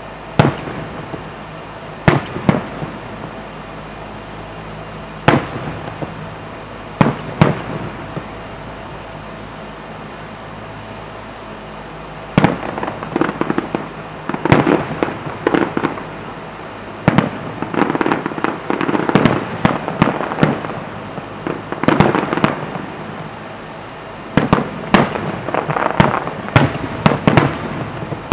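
Aerial fireworks shells bursting: a few single sharp bangs a couple of seconds apart, then from about halfway through, dense runs of rapid pops and crackling as many bursts go off in quick succession.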